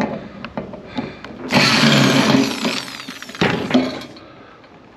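A handheld power tool runs for about two and a half seconds, starting about a second and a half in, while the small turntable motor is being taken out of a microwave. Short clicks and knocks come before and after it.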